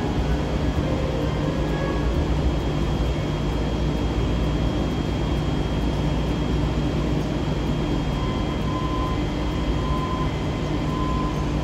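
Hiroden low-floor articulated tram (car 5101) standing at the platform, its on-board equipment giving a steady low hum with a faint high whine over it. Three short, faint tones sound near the end.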